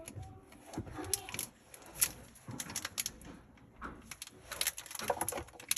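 Foil Pokémon booster-pack wrapper and trading cards being handled: a string of irregular crackles and rustles as the pack is worked open.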